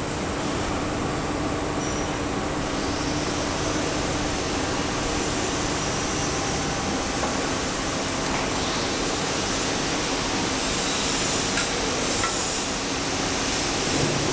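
Steady mechanical hum and rushing noise of running workshop machinery, with two light metallic clicks about twelve seconds in as parts of the tube welding machine's clamp and torch arm are handled.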